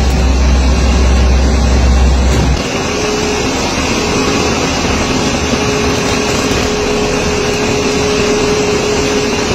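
Steady mechanical roar of an industrial incinerator running while seized cigarette cartons are fed down its metal chute. A deep hum under it drops out about two and a half seconds in, and a steady tone holds through most of the rest.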